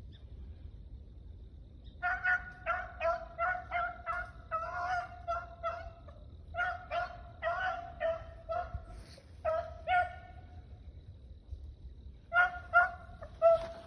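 A pack of rabbit hounds giving mouth on a running rabbit: short, repeated, honking bawls, several a second. They come in a long run from about two seconds in, stop briefly, and start again louder near the end.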